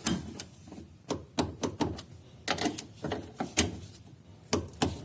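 Hand tools and metal parts being handled: about a dozen irregular sharp clicks and knocks.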